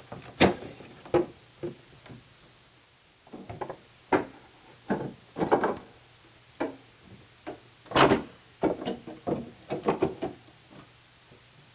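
Plastic lower housing of a Toro single-stage snowblower knocking and clattering against the frame and handle as it is worked into place by hand: a string of irregular knocks and scrapes, loudest about half a second in and again about eight seconds in.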